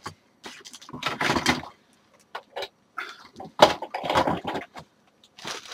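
Plastic toy pieces being gathered up and packed into a box: two bursts of rustling and clattering, with a few light knocks between them.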